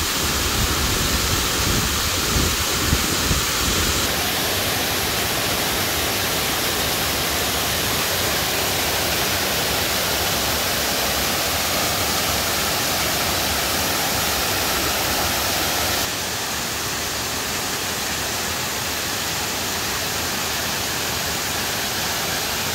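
Saree Ella waterfall: a steady, loud rush of falling water. The sound shifts abruptly twice, about four seconds in and again near sixteen seconds, and it carries a deeper rumble in the first few seconds.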